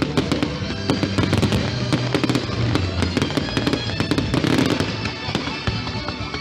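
Fireworks exploding in rapid crackles and pops, many per second, with music playing over them.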